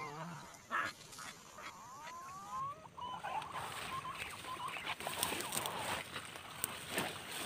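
Birds calling with short wavering, rising whistled notes in the first few seconds, followed by rustling of foliage with small clicks.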